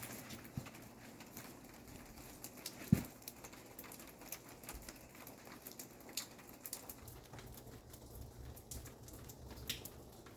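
Freezing rain pattering: many irregular light ticks of sleet and drops striking surfaces, with one sharper knock about three seconds in.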